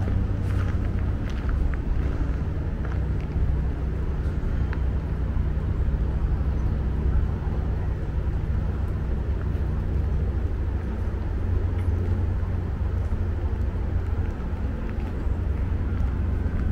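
Steady low rumble of road traffic, with a low hum that fades out about ten seconds in.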